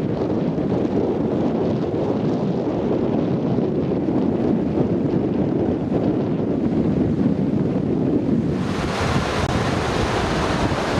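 Small waves breaking and washing up a sandy beach, with wind buffeting the microphone. About eight and a half seconds in, the surf turns to a brighter hiss.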